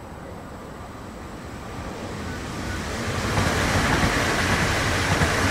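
Regional passenger multiple-unit train approaching and passing at speed: the rush and rumble of its wheels on the rails grows from about two seconds in and is loud from the middle on.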